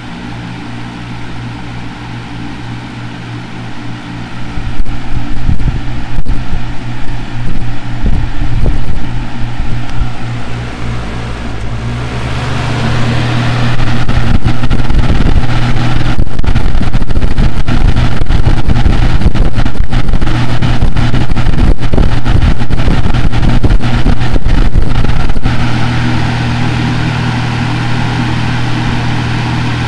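Lasko 3733 box fan running: a steady electric motor hum under a rush of moving air, with low buffeting thumps of wind on the microphone. It grows louder and fuller about twelve seconds in and drops back down about four seconds before the end.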